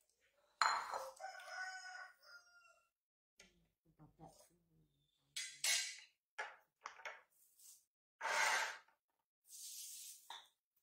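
A sharp clink on a ceramic plate with a ringing tone about half a second in. Then several short crinkling rustles of a plastic bag.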